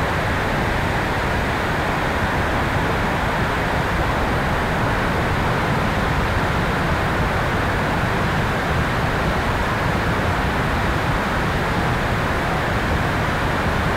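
Steady rushing wind noise from air streaming over the tail-mounted camera of an electric RC airplane in flight.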